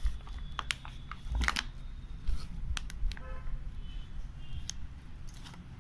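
Scattered clicks, taps and knocks of a plastic creatine tub and its lid being handled by hand while the scoop is taken out.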